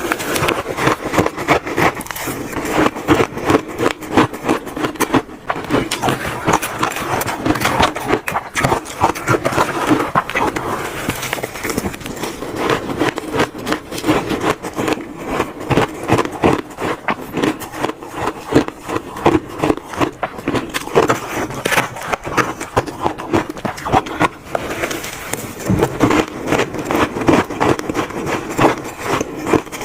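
Close-miked crunching of shaved ice being bitten and chewed, a dense, unbroken run of crisp crunches.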